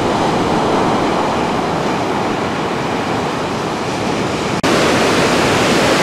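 Ocean surf: a steady rushing wash of breaking waves. The sound drops out for a moment about four and a half seconds in and comes back slightly louder.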